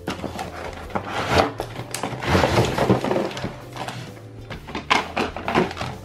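Clear plastic bag crinkling as hands handle and open it, with loose plastic toy parts knocking together inside. A few sharp clicks of hard plastic follow near the end.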